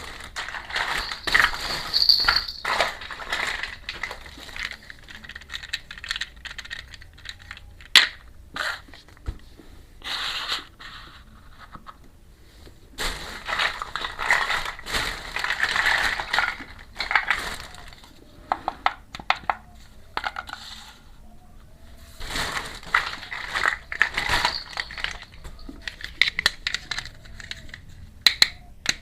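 Crinkling plastic packaging and small toy pieces clicking and rattling as miniature kitchen toys are unpacked and handled, in several spells with short pauses between them.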